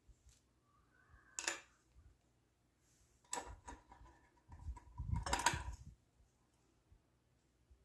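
Small objects handled on a hard surface: a brief clatter about a second and a half in, then a louder stretch of clicks and knocks from about three seconds in to about six.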